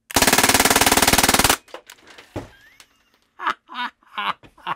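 Crosman DPMS full-auto SBR CO2 BB air rifle firing one rapid full-auto burst of about a second and a half, a fast, even string of CO2 shots that stops abruptly.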